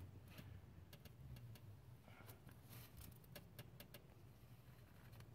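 Near silence: a faint steady low hum with scattered faint light clicks.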